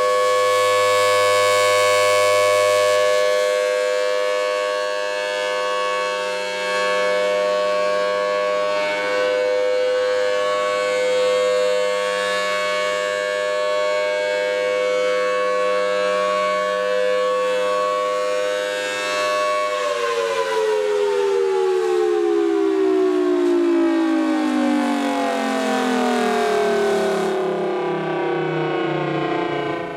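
Federal Signal Thunderbolt 1000T civil defense siren sounding a steady tone. About twenty seconds in it shuts off and winds down in a long, falling pitch.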